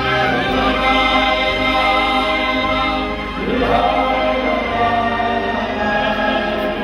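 Music: choral singing over sustained held chords, the harmony changing twice.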